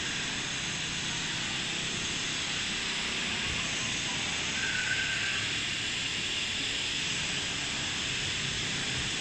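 Steady rushing hiss of airport ambience, with a brief faint tone about five seconds in.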